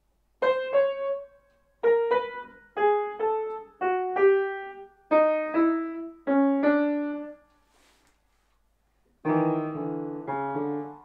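Grand piano playing a simple melody in six short two-note phrases that step downward in pitch, then after a short pause two fuller chords with a bass note near the end.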